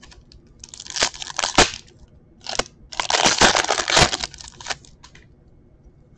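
Foil wrapper of a hockey card pack crinkling and tearing as it is ripped open by hand, in two bursts of rustling with sharp cracks of the foil.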